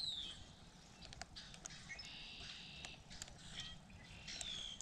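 Songbird singing: a clear whistle sliding downward, heard at the start and again near the end, with buzzy high trills between, amid faint scattered ticks.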